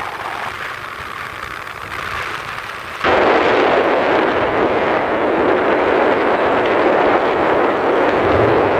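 Steady rushing wind noise on the microphone during a motorcycle ride, jumping abruptly louder about three seconds in.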